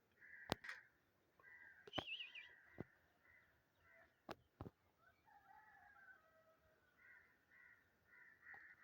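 An animal making a run of short repeated calls, with several sharp clicks in between.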